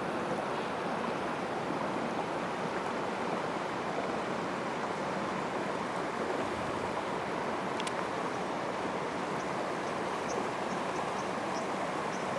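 Water falling at a partly frozen waterfall: a steady, even rushing noise. A faint click comes about eight seconds in, and a few faint short high chirps follow near the end.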